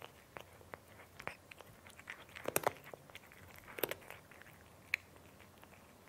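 A cat chewing crunchy food: irregular crisp crunches, with the loudest come in two short bursts of crunching in the middle and a single sharp click near the end.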